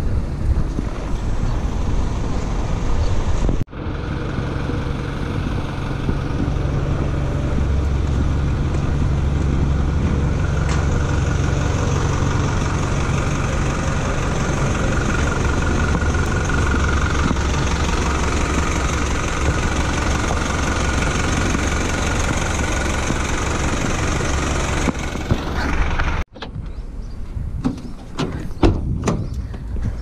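Small truck's engine running steadily, with road and wind noise, heard from its open cargo bed. The sound breaks off suddenly a few seconds in and again near the end, where it gives way to quieter outdoor sound with a few sharp knocks.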